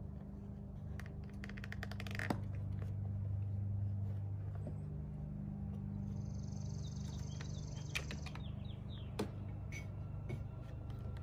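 Light clicks and taps of plastic parts being handled on a car's cowl panel as washer tubing and stick-on clips are placed, including a quick run of ticks early on and a few sharp single clicks, over a steady low background hum.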